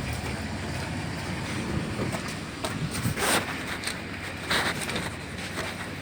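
Wind buffeting the microphone of a handheld camera outdoors, a steady rushing noise with a few short knocks scattered through it.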